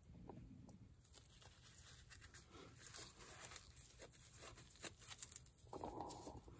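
Faint crinkling of loose plastic gloves, with small handling ticks, as a palette knife works paint and a canvas is tilted. A short louder rustle comes about six seconds in.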